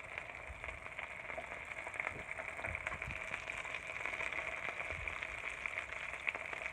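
Food frying in butter in a hot pan: a steady sizzle with many small crackling pops as the butter spatters.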